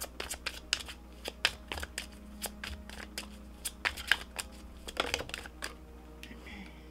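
A deck of tarot cards being shuffled by hand: a quick run of soft card clicks and flicks that stops about five and a half seconds in, with a card set down on the cloth table near the end.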